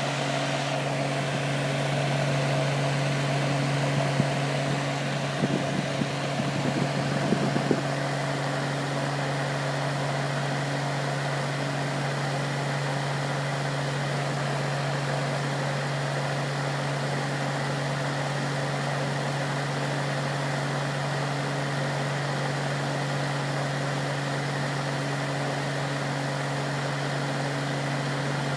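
Desktop fan running steadily: an electric motor hum under a continuous rush of blown air. Between about four and eight seconds in, a few irregular light clicks and rattles sound over it.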